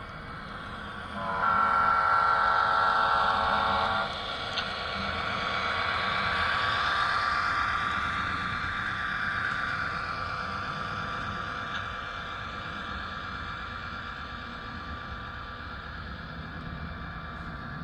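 Model train sound decoder playing a locomotive horn through the cab car's small speaker: one chord-like blast of about two and a half seconds, starting a little over a second in. After it comes a rushing running sound that swells and then slowly fades.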